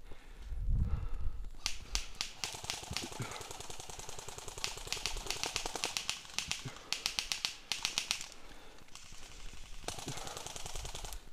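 Airsoft guns firing in rapid automatic bursts, a fast clatter of sharp clicks, several bursts one after another.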